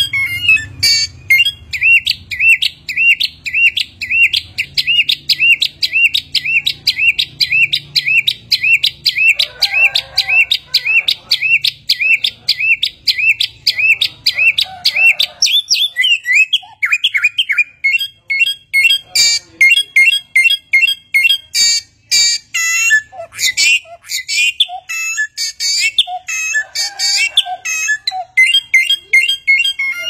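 A caged bulbul with a black crest and red throat singing. It starts with a long run of the same short, upward-hooked whistled note, repeated about two to three times a second. From about halfway it switches to a faster, varied run of falling whistles, chirps, trills and sharp clicks.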